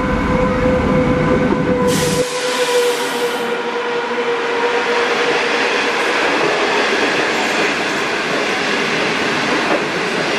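A China Railways SS8 electric locomotive and its 25T passenger coaches running through the station without stopping. It opens with a deep rumble and a steady humming tone that fades over the first few seconds, then a rush as the train reaches the platform about two seconds in, followed by the even rushing roll of the coaches' wheels on the rails.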